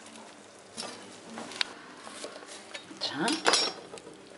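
Light kitchen handling at a cutting board: a couple of small clicks and faint rustling as a bowl is set aside and a garlic clove is picked up. A short spoken "So" comes about three seconds in.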